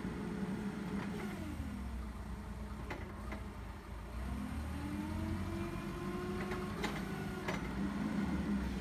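Komatsu FG20T-16 forklift engine running, its revs dropping about a second in and climbing again around the middle, with a few short clunks.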